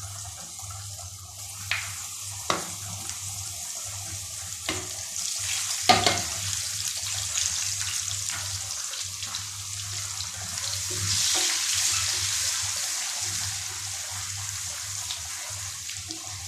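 Garlic sizzling in hot oil, a steady hiss that swells twice, with a few sharp knocks against the pan. The loudest knock comes about six seconds in.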